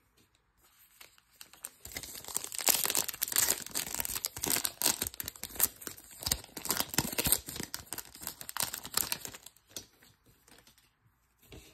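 Foil wrapper of a 2023 Topps Chrome Update trading-card pack being torn open and crinkled in the hands. The dense crackle starts about two seconds in and dies away near the end.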